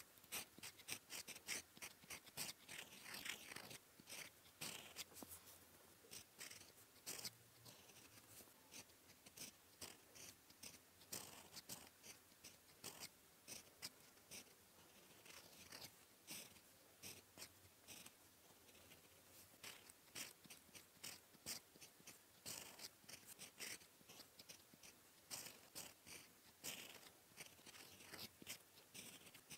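Fountain pen with a gold nib writing on paper: a faint, irregular run of short scratchy strokes, with brief pauses between letters.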